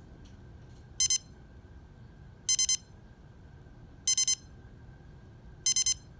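Sharp digital alarm clock's alarm beeping in its more frantic escalated stage: clusters of three or four quick beeps, repeating about every second and a half.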